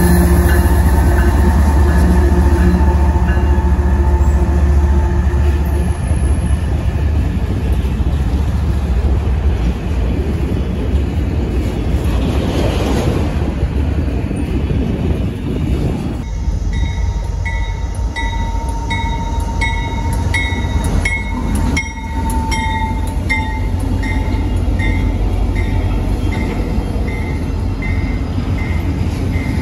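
BNSF diesel freight locomotives passing close, their engines droning, then a long string of autorack cars rumbling and clattering by on the rails. About halfway through the sound changes to a CSX freight passing, with a steady tone and a regular ding about every 0.7 seconds.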